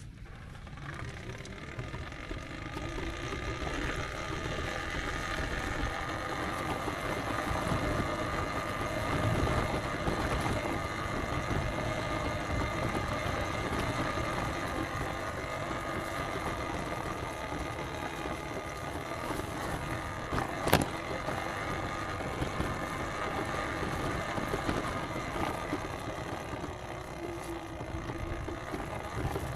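Steady rumble and road noise of a vehicle on the move, building over the first few seconds, with one sharp click about twenty seconds in.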